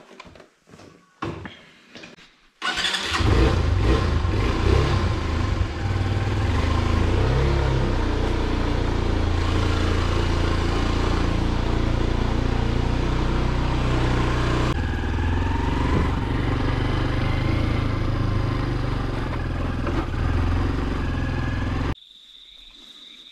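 A small trail motorcycle's engine starts about two and a half seconds in and runs steadily as the bike is ridden. Near the end it cuts off abruptly, leaving a quieter steady high tone.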